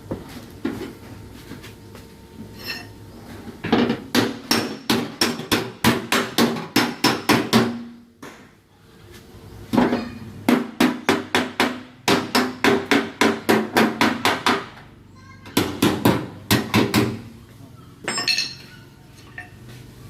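Hammer tapping the sheet metal of a dented car fender, reshaping the bent panel in quick runs of about four strikes a second, with short pauses between the runs.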